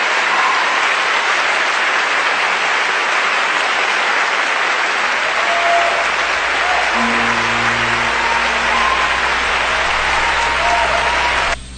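Audience applause, a dense steady clapping that cuts off abruptly near the end.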